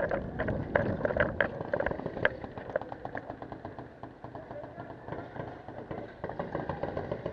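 Handling and movement noise of a paintball player on the move with his marker: quick irregular clicks and knocks from footsteps and rattling gear over a low rumble, busiest in the first couple of seconds and then easing.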